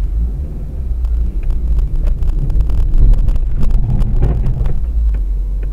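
Steady low rumble of a car's engine and tyres heard from inside the cabin while driving in traffic.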